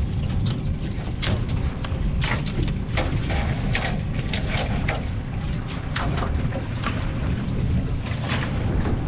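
Boat running on the river with heavy wind noise on the microphone: a steady low rumble with frequent short crackles over it.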